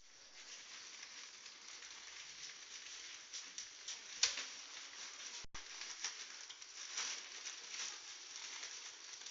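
Water splashing and lapping against a kayak hull under way, an uneven hiss with one sharper splash about four seconds in.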